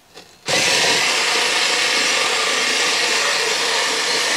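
Blue Ridge cordless rotary cutter's motor switching on about half a second in and running steadily as its spinning blade cuts through thick corrugated cardboard.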